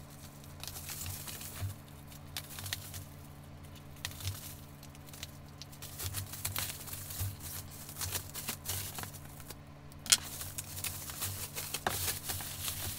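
Plastic bubble wrap crinkling and crackling as it is peeled and pulled off a shoe box, in irregular bursts, with one sharper snap about ten seconds in. A steady low hum runs underneath.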